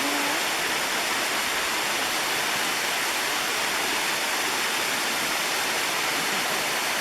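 Steady rush of falling water from Tom Branch Falls cascading into Deep Creek, an even, unbroken hiss.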